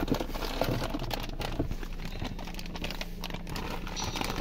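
Clear plastic packaging crinkling and rustling, with small irregular clicks, as a new airbag clock spring is lifted out of its cardboard box and bag.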